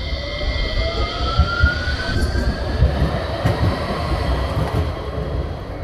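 Electric tram passing close by, its motors giving a whine that rises in pitch as it gathers speed, over the rumble of its wheels on the rails.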